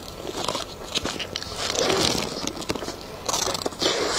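Close-miked eating sounds of a soft cream-filled snow-skin mochi cake (xue mei niang) being torn by gloved hands and bitten into. Small wet mouth clicks come throughout, with two louder crackly stretches around two seconds in and near the end.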